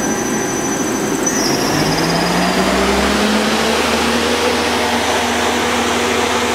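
Steady whirring of running machine-shop machinery, with a low hum that rises in pitch from about a second and a half in and then holds steady.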